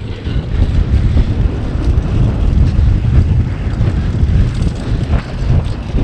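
Wind buffeting the microphone over the rumble of a mountain bike riding fast down a dirt trail.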